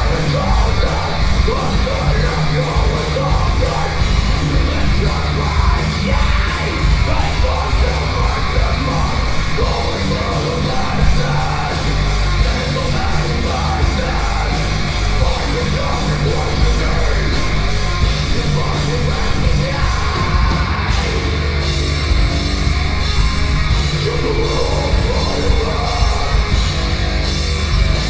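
Live heavy metal band playing: distorted guitars and bass over fast, driving drums, with harsh yelled vocals.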